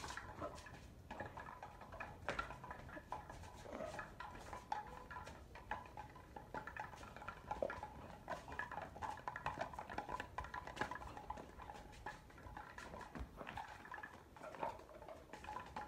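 A German Shepherd's paws and claws and a man's sandals pattering and scuffing on paving during a game with a small ball, with scattered light knocks.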